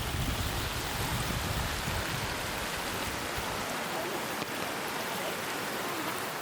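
Steady rushing of falling water from a waterfall, with low wind rumble on the microphone that dies away about halfway through.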